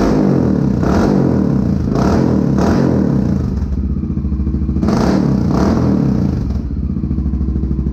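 Honda XR650L's single-cylinder four-stroke engine being blipped on the throttle again and again through a Big Gun EVO R slip-on exhaust with its spark arrestor left out, then settling to a steady idle about six and a half seconds in.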